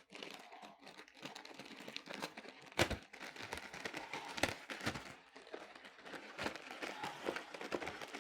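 Packaging being handled: paper and plastic crinkling and rustling with small knocks, and one sharper knock a little under three seconds in.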